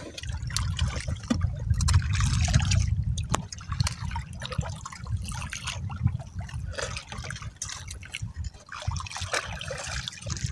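Seawater sloshing and trickling against a small wooden outrigger boat, with a low wind rumble on the microphone and scattered small clicks.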